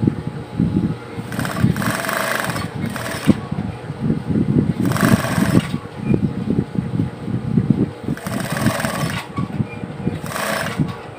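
Industrial lockstitch sewing machine stitching in four short runs, with a low rattling rumble throughout.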